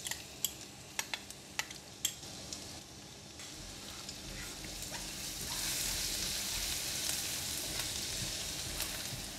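Chopped garlic sizzling in hot oil in a nonstick wok as it is stirred with a silicone spatula, frying until fragrant. A few light taps come in the first couple of seconds, then the sizzle grows louder about halfway through and stays steady.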